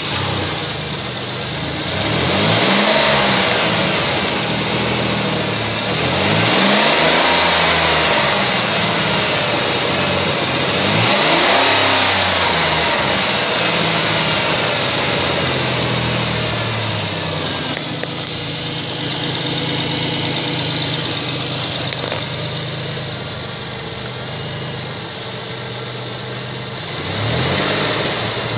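2007 Chrysler Pacifica's V6 engine running at idle and revved up and back down four times: three revs in the first half and one more near the end.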